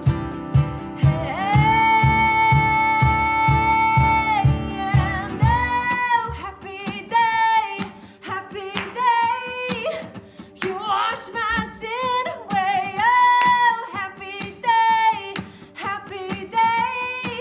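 A song with a lead singer over guitar. A long held high note comes about a second in, then a quick, winding melody; a steady low beat drops out about six seconds in.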